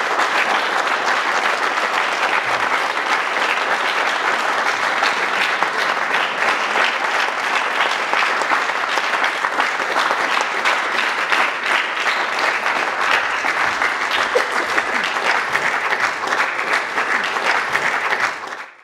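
Audience applauding, a dense, steady clatter of many hands clapping that fades out just before the end.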